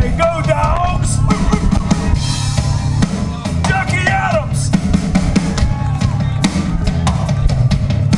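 Live amplified rock band playing, the drum kit loudest with kick and snare keeping a steady beat over bass and electric guitar.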